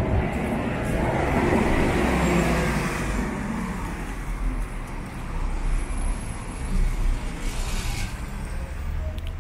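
Street traffic: a vehicle passes close, its engine and tyre noise swelling over the first couple of seconds and fading by about three seconds in, over a steady low rumble of road traffic.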